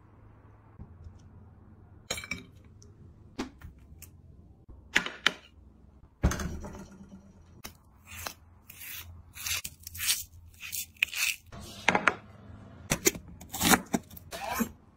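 Kitchen knife cutting raw meat from the bone and slicing an onion on a plastic cutting board: a run of short, irregular cuts, scrapes and knocks of the blade, coming more often in the second half.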